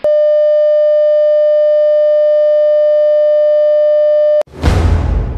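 A loud, steady electronic tone, one unchanging pitch with a buzzy edge, that cuts off abruptly about four seconds in. Right after it comes a loud noisy crash with a deep rumble, leading into dramatic music.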